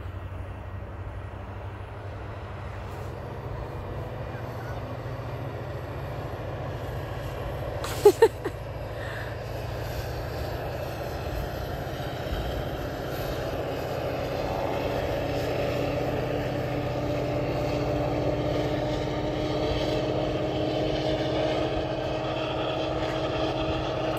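A steady low engine drone that grows gradually louder through the second half, with two sharp knocks about eight seconds in.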